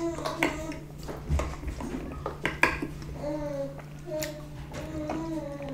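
A plastic juice bottle handled with a few clicks and knocks, then a drink from it. A child's voice talks in the background in the second half, over a steady low hum.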